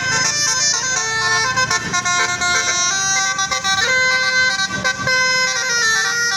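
Telolet basuri multi-tone bus horn playing a quick stepping melody, several notes sounding together, over a low rumble.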